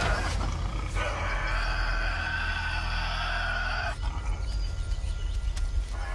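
Tasmanian devil growling: a long growl that breaks off about four seconds in and starts again near the end, over a steady low rumble.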